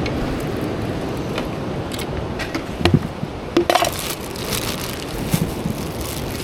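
Ocean wash surging over a rock ledge, with scattered knocks and clinks from footsteps and fishing gear, and a burst of splashing spray about four seconds in.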